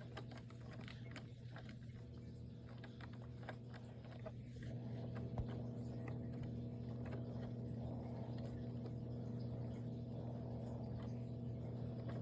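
Small plastic clicks and taps from handling a robot vacuum's parts over a steady low electrical hum, which gets a little louder about halfway through.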